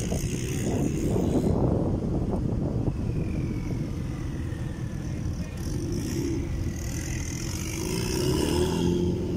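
BMW drift cars' engines running at low revs, an uneven deep rumble, as a car rolls slowly past; near the end one engine note steadies and rises slightly.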